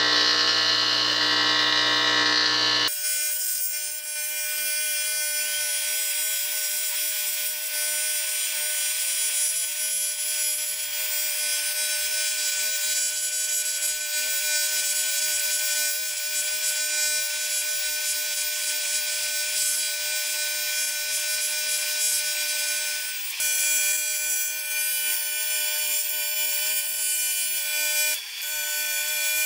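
Argon TIG welding arc on a cylinder head, welding the crack between the valve seats: a steady hissing buzz with a constant whine, briefly breaking about 23 and 28 seconds in.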